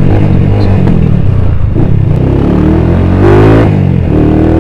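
Motorcycle engine running while riding, with a steady low drone; about three seconds in the revs climb, then fall back a moment later.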